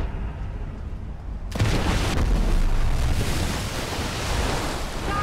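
An enclosed lifeboat hits the sea: a sudden heavy boom and a long rushing crash of water about a second and a half in, after a low rumble.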